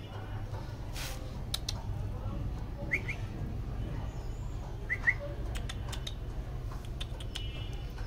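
Budgies giving a few short chirps: one about three seconds in and a quick pair about five seconds in. Faint scattered ticks and a steady low background hum run underneath.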